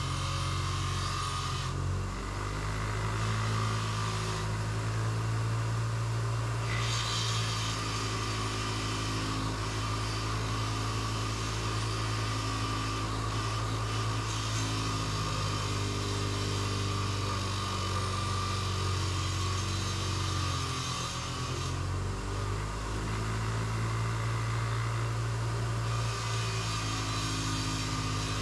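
Bench grinder with a wire wheel running, cleaning carbon off an engine valve. The motor's steady hum runs under a rasping hiss that comes and goes as the wire wheel works the metal.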